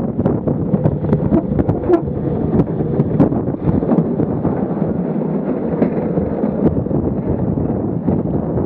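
Wind buffeting the microphone while a gravity luge cart's wheels roll fast over a concrete track, with frequent sharp rattles and knocks from the cart over bumps.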